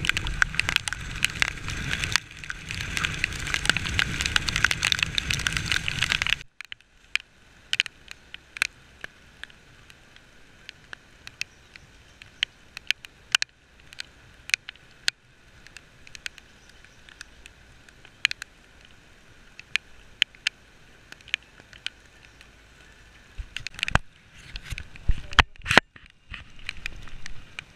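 Wind rush and a small motorcycle running while riding in the rain, cutting off abruptly about six seconds in. Then comes a muffled, much quieter stretch with scattered sharp ticks of raindrops hitting the camera, and a few louder knocks near the end.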